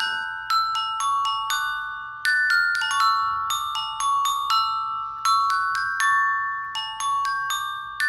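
Background music: a slow, gentle melody of struck bell-toned notes on a glockenspiel-type instrument, each note ringing and fading before the next.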